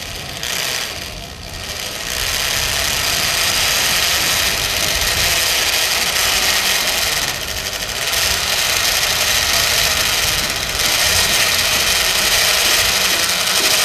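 Electric rotary hammer drill boring an anchor bolt hole into concrete. It is quieter for the first two seconds, then runs steadily under load, easing off briefly twice.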